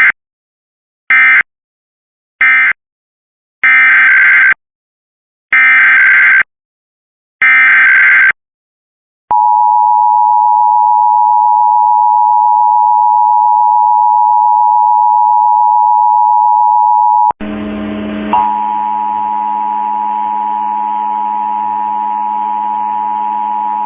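Emergency Alert System tones: three short warbling data bursts closing the previous message, then three longer data bursts of the next header, then the steady two-tone EAS attention signal held for about eight seconds. It cuts off to a lower steady buzzing hum with a faint tone.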